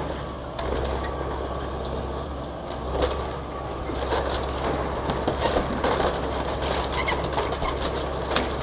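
Excavator engine running steadily while the building it is tearing down cracks and crunches, the cracking growing busier from about three seconds in.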